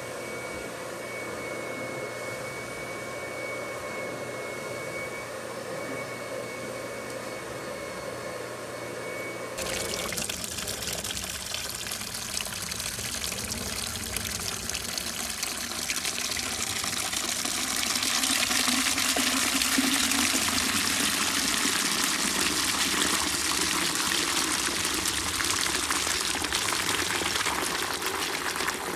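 A carpet extraction machine runs with a steady hum and a thin high whine. About ten seconds in it cuts to dirty extraction water pouring in a thick stream into a foaming bucket, a rushing splash that grows louder partway through.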